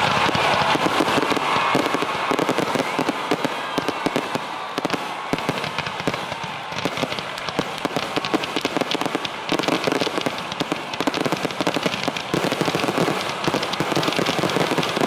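Fireworks going off in rapid succession: dense crackling pops, many a second, without a break.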